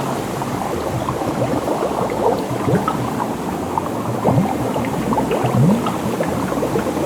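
Water bubbling and splashing, with many small drips and gurgles and a low rising bubble-like blip about once a second.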